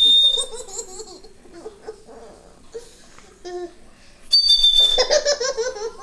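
Plastic toy bird whistle blown twice, a short steady high whistle at the start and again about four and a half seconds in. Each whistle draws a toddler's hearty belly laughter.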